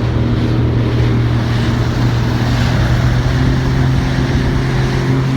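Jet ski engine running under way at a steady pitch, over an even rush of wind and water noise.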